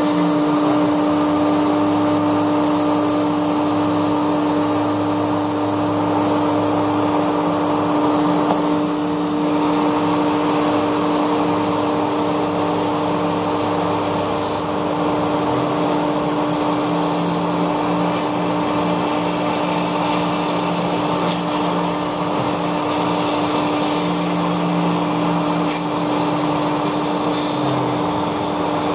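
Laguna SmartShop II CNC router running as it cuts foam: the spindle holds a steady high-speed whine, while a lower motor hum shifts in pitch every several seconds as the machine changes its moves.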